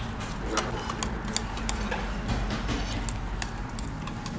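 Scattered light clicks and taps of utensils against dishes, over a steady low hum.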